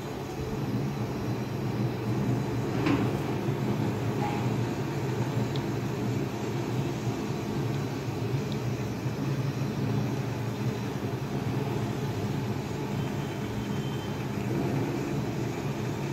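Steady low mechanical hum, such as a fan or air cooler running, with a faint click about three seconds in as the plastic modak mould is handled.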